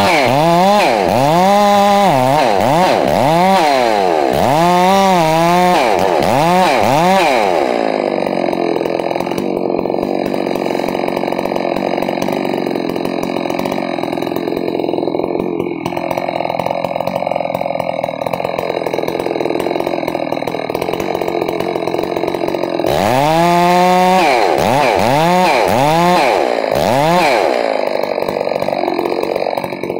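Ported Farmertec G660 two-stroke chainsaw cutting through a standing tree trunk in a felling cut behind an existing notch. The engine pitch rises and falls about once a second for the first several seconds and again near the end, with a long stretch of steadier, lower running under load in the cut between.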